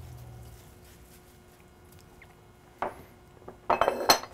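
Hands being wiped on a cloth kitchen towel: a brief, quick rustle of fabric near the end, with a single light knock just before it.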